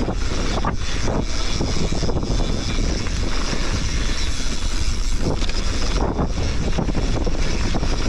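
Mountain bike running fast down a dirt trail: steady rush of wind on the helmet-camera microphone mixed with tyre noise on dirt, and a few short knocks and rattles from the bike over bumps.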